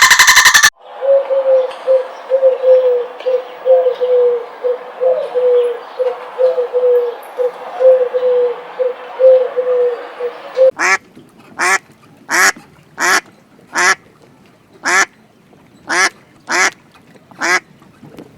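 Recorded animal calls. First comes a quick string of short notes at a steady pitch over a background hiss. About eleven seconds in it changes to nine separate loud calls, each well under a second apart.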